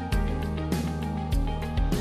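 Background music with a steady beat over held bass notes.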